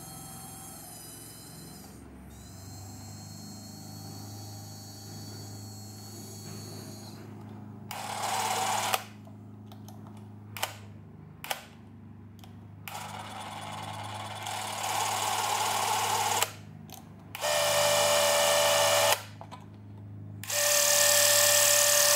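Bauer C 6 Super 8 movie camera's small electric motor whirring in several short runs of one to three seconds, each starting and stopping abruptly, with two sharp clicks of its controls between them. A quieter steady hum fills the first several seconds.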